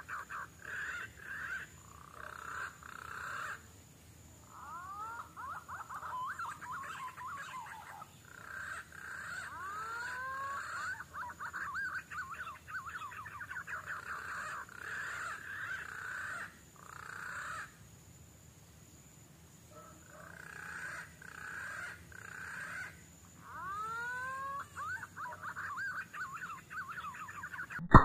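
Birds calling in bursts of rapid whistling, chirping notes, with a few rising whistles now and then, from the green pigeons (punai) feeding in the tree.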